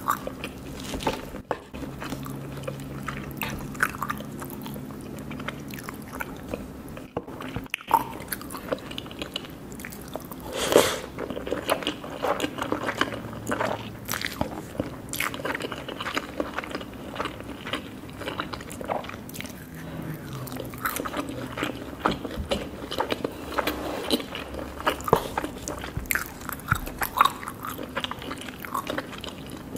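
Crunchy chewing: many irregular bites and crunches.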